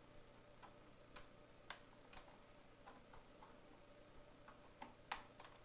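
Faint, unevenly spaced light clicks as a chaining cable's plug is worked and pressed onto the terminal of a Goal Zero Extreme 350 power pack, with the sharpest click near the end.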